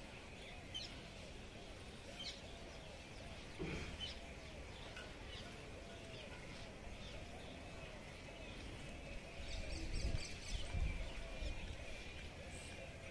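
Faint outdoor ambience with birds chirping now and then, and low rumbling that swells near the end.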